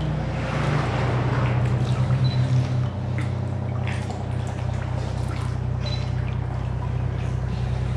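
Sea water trickling and dripping off kayak paddle blades as they dip in calm water, with small splashes, over a steady low hum.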